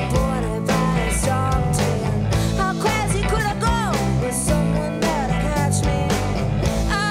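Live rock band playing: hollow-body electric guitar, electric bass and a drum kit, with a woman singing the melody.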